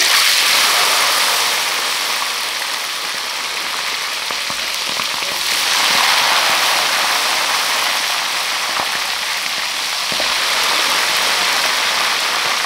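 Small seluang river fish deep-frying in hot oil in a wok: a loud, dense sizzle that starts suddenly as the fish go in and keeps going steadily.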